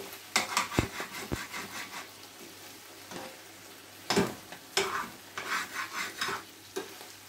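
A spoon stirring and scraping fried potatoes and chanterelles in a frying pan, over a light sizzle of frying. There are a few sharper knocks of the spoon against the pan.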